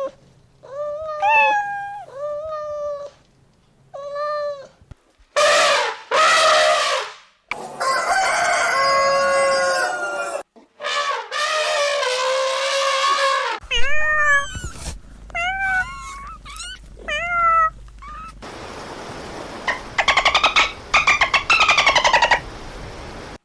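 A string of different farm animal calls edited one after another. There are short pitched cries repeated several times, longer loud calls, and near the end a rapid pulsing trill.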